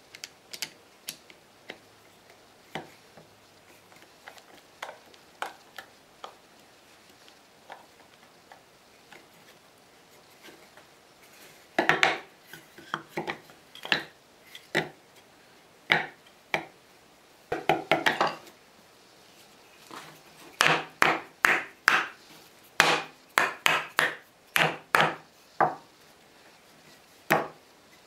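Wooden boards being handled, knocked and set down on a wooden workbench: scattered knocks and taps, sparse at first, then in quick clusters through the second half.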